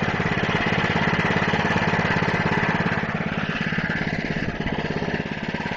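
Small Honda engine on a Craftsman Eager-1 snowblower running steadily, with a fast, even pulsing.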